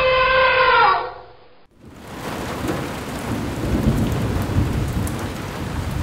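Cartoon sound effect of heavy rain falling steadily, with low rumbling thunder. It comes in after a short musical jingle ends with a falling glide in the first second.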